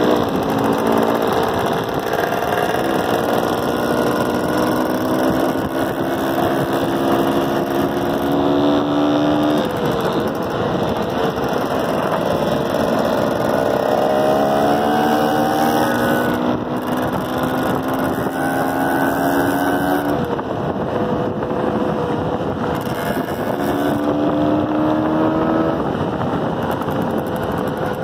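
Dirt bike engine running under way, its pitch climbing under acceleration and dropping back at each gear change, several times over.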